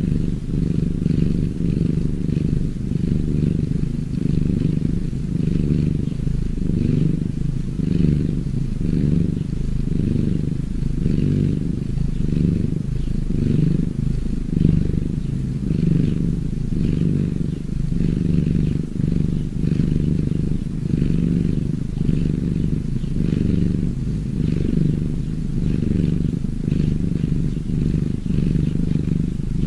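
Domestic cat purring close to the microphone: a steady low rumble that swells and eases in a regular rhythm.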